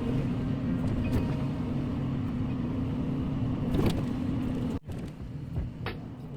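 Diesel engine of a Doosan DX140W-5 wheeled excavator running with a steady rumble, with a single metallic clank about four seconds in. Just before five seconds the sound drops suddenly to a quieter rumble.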